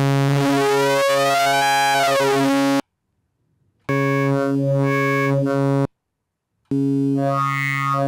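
Melbourne Instruments Nina synthesizer's digital wavetable oscillator playing one low note three times, each held for about two to three seconds with short silent gaps. On the first note a whistling set of high tones glides up and back down. These are the factory wavetables, including vintage aliased ones.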